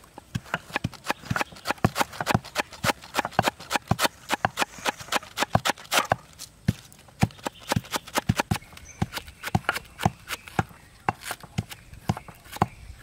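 Knife chopping through a head of cabbage onto a wet wooden chopping board, shredding it finely: a quick, irregular run of knocks, about four to five a second.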